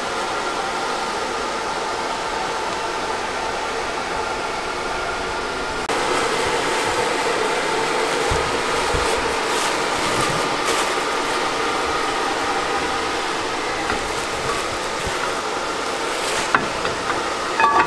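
A steady mechanical hum with a few steady tones in it, a little louder from about six seconds in; a few sharp clicks near the end.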